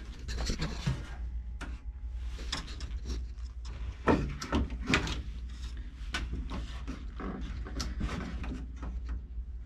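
Wooden knocks and clunks from a homemade retractable-caster lever under a table saw stand being worked by foot, the hinged caster frame shifting with it. The loudest clunks come about four and five seconds in.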